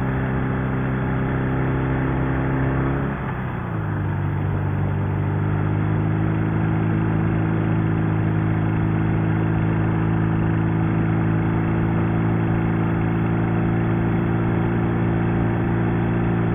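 Sidecar motorcycle's flat-twin engine running under way on the road, shifting up about three seconds in: the revs drop briefly, then it pulls steadily at a lower pitch in the higher gear.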